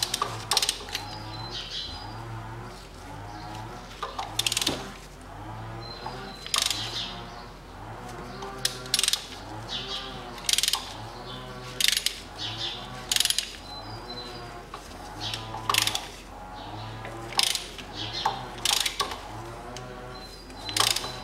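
Ratchet wrench on a spark-plug socket clicking in short bursts every second or two. It is being swung back and forth to rock free a spark plug that has sat in the engine a long time, which the mechanic fears is stuck, after a spray of WD-40.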